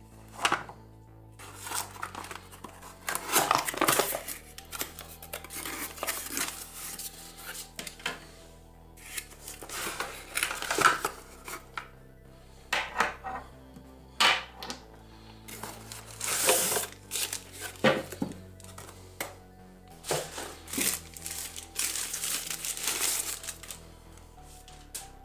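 Cardboard box and packaging rustling and crinkling as it is opened and handled, with a few sharp knocks of items set down on a table, over quiet background music.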